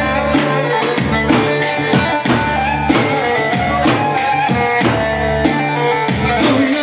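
Live folk dance music: a davul (large double-headed bass drum) beating a steady rhythm under a held, gliding melody.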